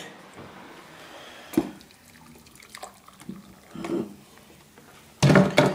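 Boiling water poured from a kettle into a mug of coffee granules, with a sharp knock about a second and a half in.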